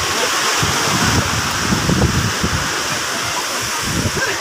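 Rough sea surf rushing steadily, with wind buffeting the microphone in uneven low rumbles.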